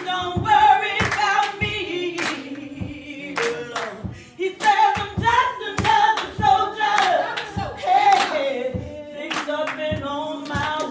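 A song with a sung lead and choir voices over a steady clapping beat, about two claps a second.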